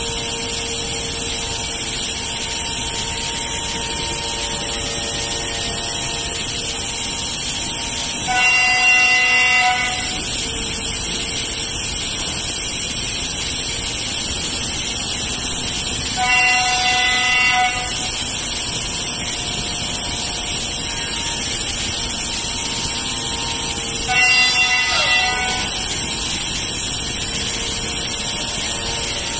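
Pade Velox T2 five-axis CNC router running with a steady hiss. Three short, pitched, horn-like whines come about eight seconds apart.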